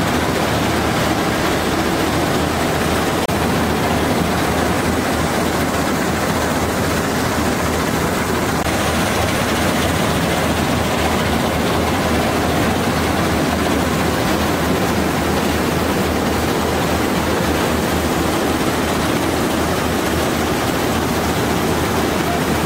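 Channy 930 combine harvester running steadily while it harvests a standing paddy crop: a constant loud machine noise with a low engine hum underneath.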